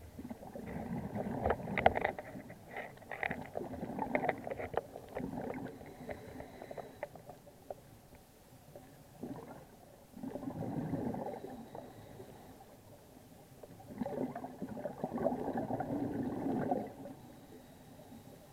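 Scuba diver's exhaled bubbles rushing out of the regulator underwater, three long bubbly exhalations a few seconds apart with quieter breaths in between.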